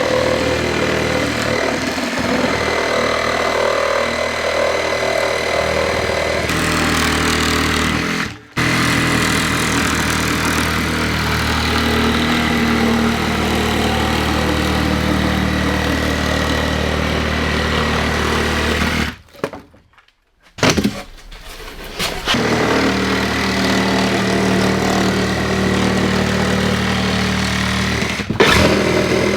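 Hand-held electric saw running and cutting through plywood wall sheathing, the loose plywood rattling under the blade. It stops briefly about eight seconds in and again for about two seconds near two-thirds of the way through, then starts cutting again.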